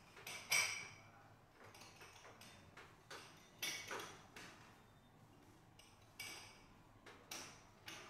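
Sharp slaps or taps of a hands-on massage: four loud strikes among several softer ones, irregularly spaced, each fading quickly.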